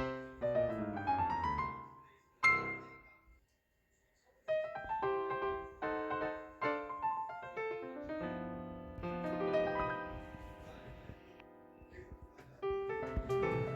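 Background piano music: a run of notes and a struck chord, a pause of about a second, then the piano melody starts again and carries on.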